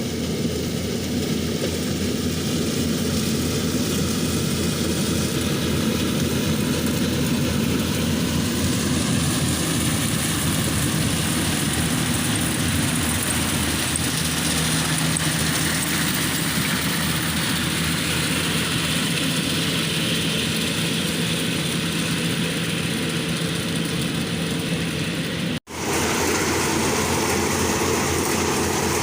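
Yanmar AW-70V corn harvester running steadily under work, its engine and threshing machinery making a continuous loud drone. The sound drops out for an instant near the end, then carries on unchanged.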